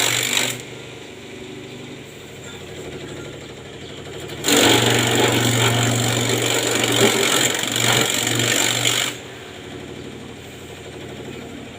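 Simple grass chopper machine running with a steady hum, cutting grass loudly for a moment at the start and again for about four and a half seconds in the middle, and running quieter in between.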